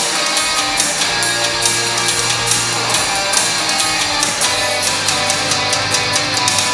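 Recorded band music with a steady drum beat, played as the backing track for a group dance routine.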